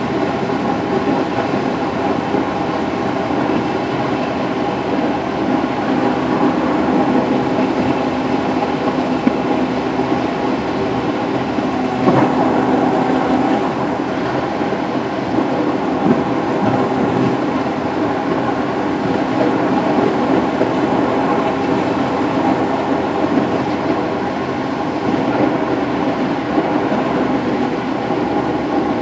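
Steady road and tyre noise heard inside a car cruising on a highway: an even rumbling hiss with a faint hum under it, and one brief knock about twelve seconds in.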